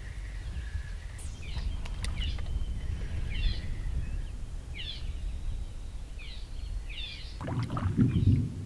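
Songbirds calling in short clusters of quick descending notes over a constant low rumble, with a few sharp knocks about two seconds in. Near the end a louder low rumble of distant thunder rolls in from an approaching storm.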